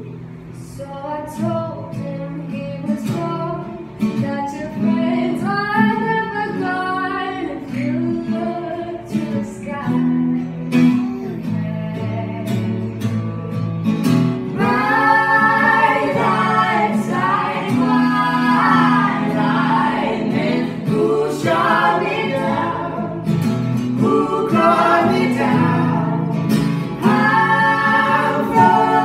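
Acoustic guitar accompanying singing: a female lead voice, joined by a man and a second woman singing in harmony. The music grows fuller and louder about halfway through.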